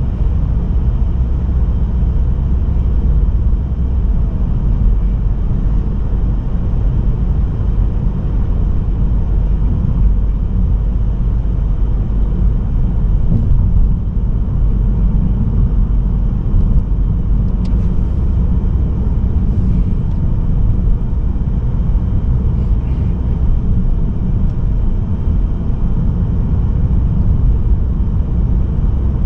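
Steady low rumble of a moving car, the Mazda3's 1.8-litre diesel engine and tyre road noise, heard from inside the cabin while cruising.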